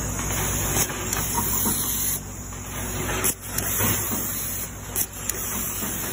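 SWT AT25100H automatic cable tie gun tying ties onto a wire harness: sharp clicks and short air hisses in pairs, about three tying cycles, over a steady low machine hum.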